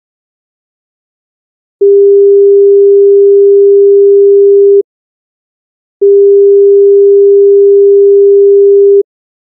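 Pure sine-wave test tone at about 400 Hz, played twice for about three seconds each with a gap of about a second between: a frequency-recognition ear-training question.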